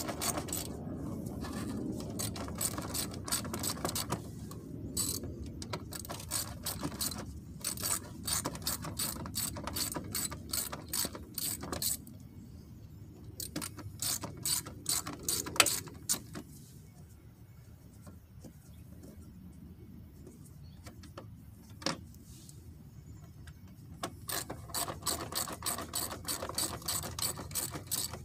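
Hand ratchet clicking in quick runs as it backs out the 7 mm bolts that hold the wheel liner to the fender, with pauses between the runs.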